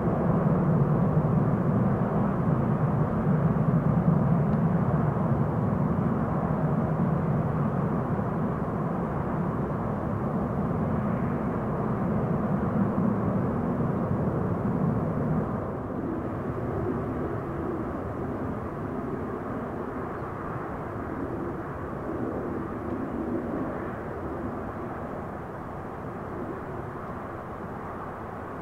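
Four turbofan engines of a Xian Y-20A Kunpeng military transport running as a steady jet rumble that fades gradually, with a small drop in the low rumble about halfway through.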